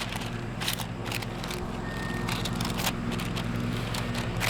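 Body filler being scooped and smeared on mixing paper, irregular short scraping strokes over a steady low hum.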